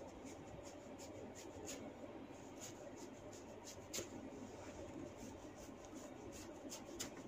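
Faint rubbing and scattered small clicks of hands working on a neck during a massage, with two sharper cracks, one about four seconds in and one near the end.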